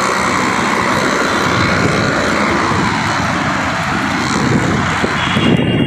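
Steady roar of wind on the microphone mixed with busy road traffic, heard from a moving bicycle.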